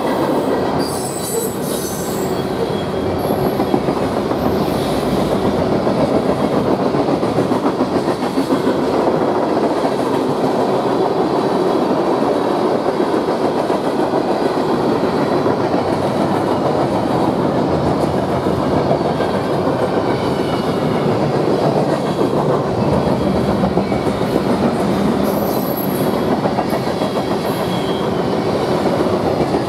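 Freight cars of a passing manifest train rolling by: a steady rumble of steel wheels on rail with a clickety-clack over the joints, and brief high wheel squeals about a second in and again near the end.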